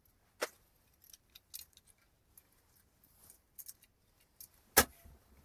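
Small clicks and light metallic rattles of a case fan and its screws being handled and fitted into a PC case, with a sharp click about half a second in and a louder knock near the end.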